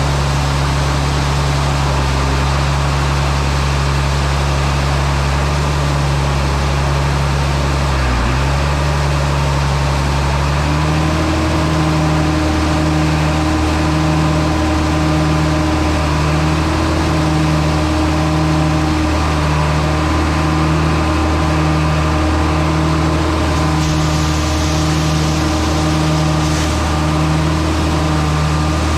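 A heavy engine running steadily. Its note shifts about ten seconds in and then settles into a regular pulse.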